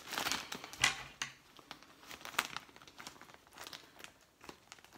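Plastic mailer bag crinkling and rustling as it is handled and cut open with scissors, in irregular crackles, the loudest about a second in and sparser after that.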